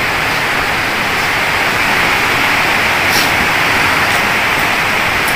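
A steady, loud hiss of even noise.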